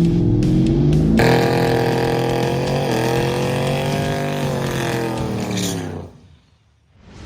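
A car engine running at high revs. Its pitch jumps up about a second in, then slowly falls as it winds down and cuts off shortly before the end.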